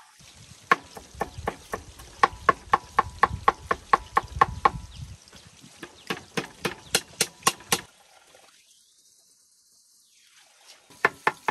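A knife chopping on a cutting board, fast and even at about three to four strokes a second, each stroke a sharp knock with a short ring. It stops about eight seconds in and starts again near the end.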